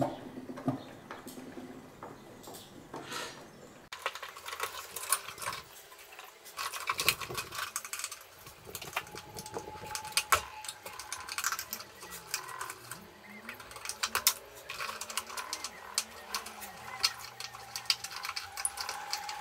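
Irregular clicks, rattles and scrapes of old wires and metal parts being pulled and twisted loose by hand inside the wooden case of a vintage sinusoidal stimulator unit. Sparse at first, much busier from about four seconds in.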